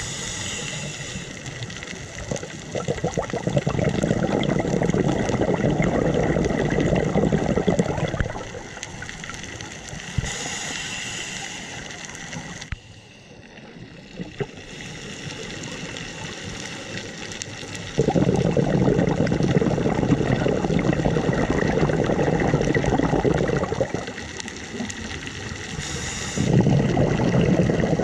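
A scuba diver breathing through a regulator underwater: short hissing inhales, each followed by a long burst of bubbling exhaled air, about three breaths in all.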